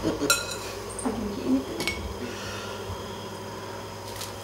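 Two light ringing clinks of a spoon against a ceramic bowl, the first about a third of a second in and a smaller one just under two seconds in, then low steady hiss with a faint click near the end.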